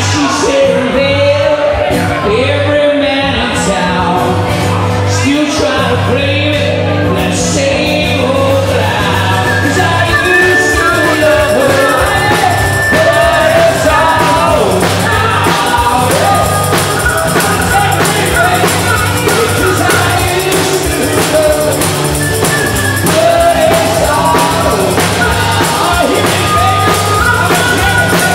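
Live harmonica solo over a strummed acoustic guitar and bass, full of bent notes, with a long held high note about ten seconds in and another near the end.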